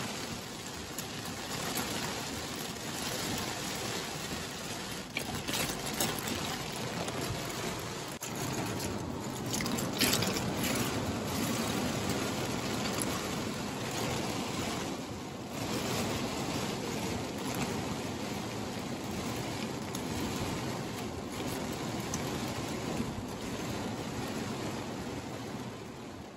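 Heavy rain from a supercell downpour pelting the car's windshield and body, heard from inside the car as a dense, steady rush of noise. There is a brief louder burst about ten seconds in.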